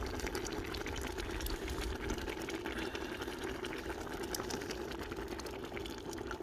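A pot of pondu (cassava leaves) with fish simmering, bubbling steadily with many small pops and crackles.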